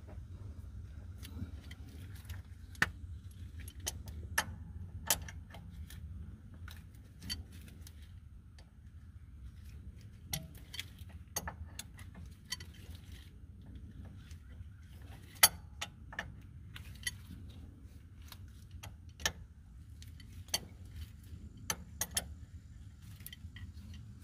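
Steel adjustable wrench clinking and tapping against a semi truck's differential fill plug and housing as the plug is loosened and taken out: irregular sharp metallic clicks over a steady low hum.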